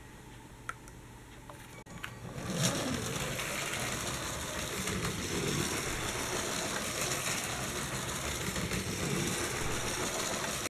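Motorized Lego train running on plastic Lego track, a steady whirring motor and rolling wheels that start about two and a half seconds in, after a quieter stretch with a few faint clicks.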